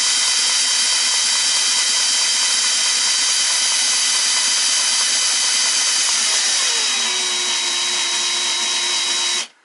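Cordless drill running steadily as it spins a model Stuart beam engine and its centrifugal governor over by the crankshaft, a steady whine with a hiss. A lower tone drops slightly about seven seconds in, and the drill stops suddenly near the end.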